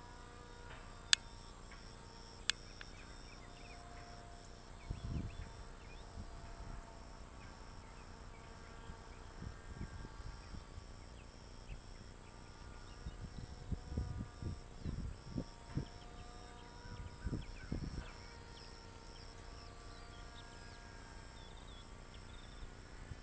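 Insects chirping in a steady high rhythm, about two chirps a second, with scattered short calls. Two sharp clicks come in the first few seconds, and low rumbles rise and fall now and then, loudest in the second half.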